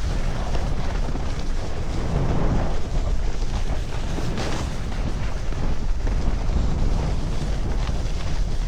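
Wind rushing over the microphone of a rider sliding downhill at speed, with the steady hiss and scrape of edges on snow.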